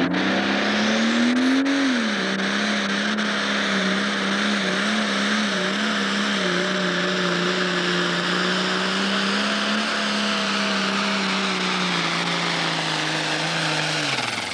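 Pro Stock pulling tractor's turbocharged diesel engine at full throttle, dragging the weight sled. Its pitch climbs over the first couple of seconds, then holds a steady, slightly wavering drone under load, and drops as the throttle comes off near the end.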